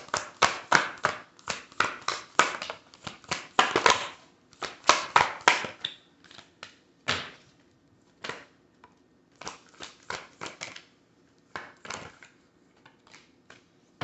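A deck of oracle cards being shuffled by hand: a fast run of sharp card slaps, about four or five a second, then slower single taps for the rest of the time as the shuffle slows.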